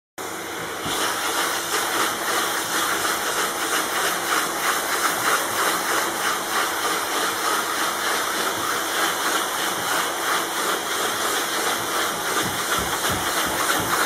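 Vacuum cleaner running, a steady loud airy hiss from its hose nozzle as it is drawn over pool-table cloth; it cuts in suddenly at the very start and rises to full strength within the first second.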